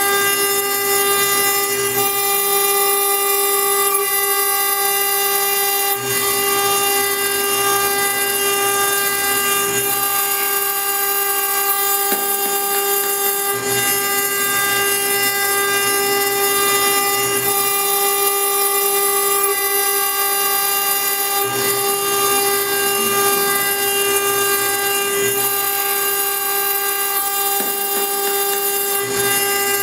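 A CNC router spindle runs at a steady high-pitched whine with several overtones while a conical engraving bit cuts into a water-cooled stone slab. A gritty hiss of cutting runs under it, and the lower part of the sound shifts every few seconds as the tool moves.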